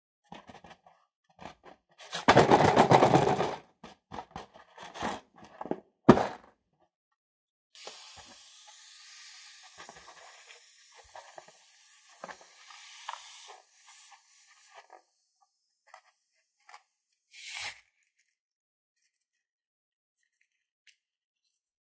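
Hands rubbing and squeezing a rubber balloon, giving scraping, crackling rubber noises that are loudest a couple of seconds in. There is a sharp click about six seconds in, then softer hissy rubbing for several seconds.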